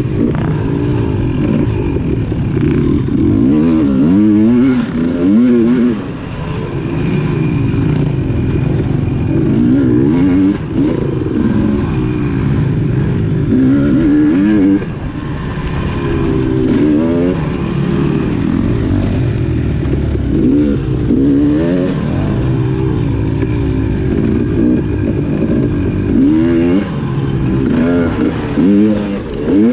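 Off-road dirt bike engine working hard through a trail section, revving up and down repeatedly as the throttle is opened and shut, with brief drops where the throttle is rolled off around 6 and 15 seconds in. Rattling of the bike's chassis runs along under the engine.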